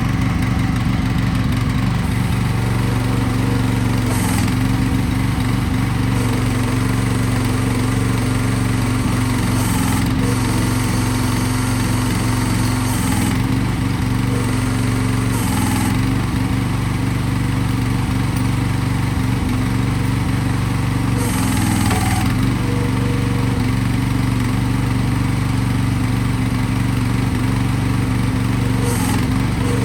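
Mini excavator's small engine running at a steady speed, with short bursts of hissing now and then as the machine works.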